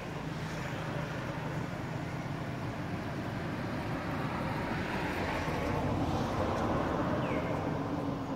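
Steady outdoor background noise with a low hum that grows a little louder in the second half, and one short high chirp near the end.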